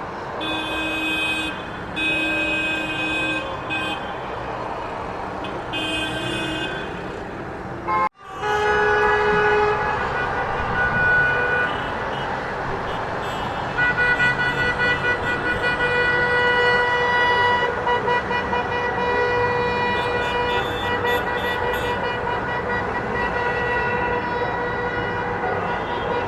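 Several horns honking in overlapping held toots over a continuous background din, as in a noisy street celebration. The sound breaks off for an instant about eight seconds in, then resumes with more horns sounding together.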